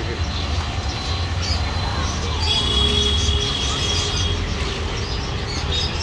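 Steady background noise with a low rumble. About two and a half seconds in, a high, thin steady whistle sounds for nearly two seconds.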